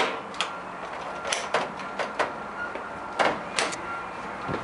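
Scattered sharp metallic clicks and knocks, about eight in all, from handling a deep fryer's wire baskets and stainless steel parts.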